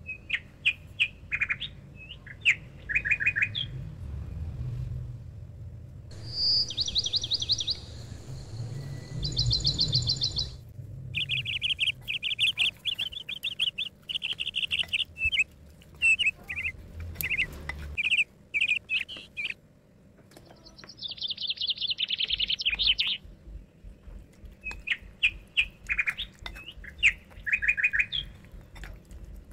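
Small songbirds chirping and trilling in repeated phrases of quick notes, with short pauses between phrases.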